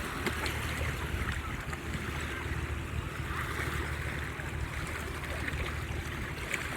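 Sea waves washing in, swelling and ebbing every few seconds, over a steady low rumble.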